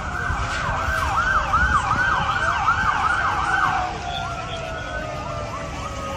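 Emergency vehicle sirens: one cycling in a fast yelp, about four rises and falls a second, then changing to slower falling tones about four seconds in, with a second, lower siren tone sliding slowly downward beneath it.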